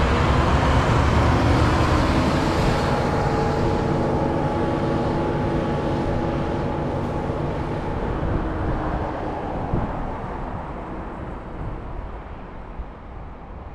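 Kubota M5-09 tractor's diesel engine running steadily as the tractor drives away, its sound fading with distance.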